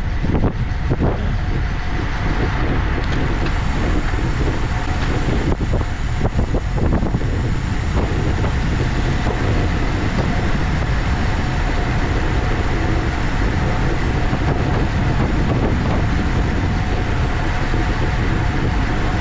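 Steady wind rush on a bicycle-mounted camera's microphone, with the low rumble of road-bike tyres on asphalt, while riding. A few brief bumps or buffets come in the first several seconds.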